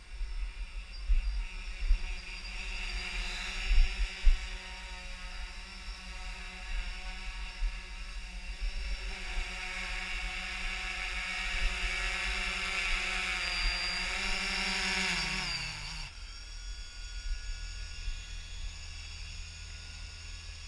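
Yuneec Typhoon H hexacopter's six motors and propellers humming steadily in flight, growing louder as it comes close. About fifteen seconds in, the pitch drops quickly and the hum dies away as the motors spin down when the drone comes down, in what the pilot calls a fall. Wind buffets the microphone, with a few heavy thumps near the start.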